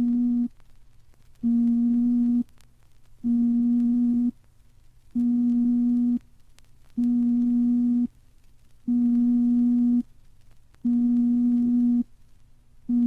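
Science-fiction sound effect from a record: a low, buzzy electronic tone pulsing on and off, each note about a second long with a second of silence between, repeating evenly like an alarm or signal.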